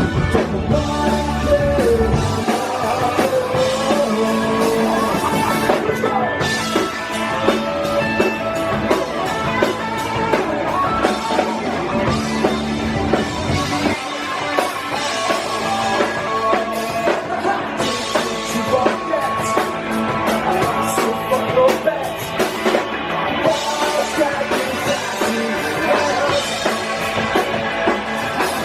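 Live rock band playing a full-band song, with electric guitar, bass and drum kit, and a voice singing over it.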